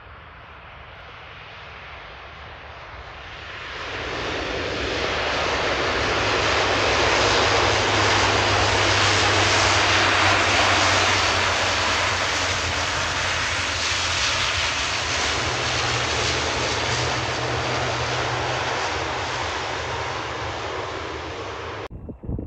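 Twin turboprop engines and propellers of an Aer Lingus ATR 72 airliner on the runway, with a steady low propeller drone under the engine noise. It swells to loud about four seconds in, eases off slowly, and cuts off abruptly just before the end.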